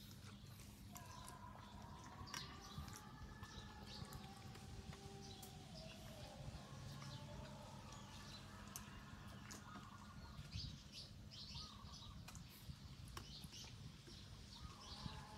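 Faint chirping calls, like small birds, with wavering whistled notes and a few scattered soft clicks.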